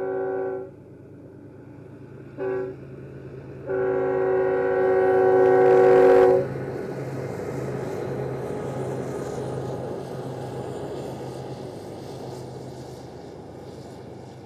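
Union Pacific diesel locomotives sounding a multi-note air horn in three blasts: one ending just after the start, a brief one about two and a half seconds in, and a long one from about four to six seconds, which is the loudest. After that comes the steady rumble of the locomotives and loaded coal hopper cars passing, slowly fading.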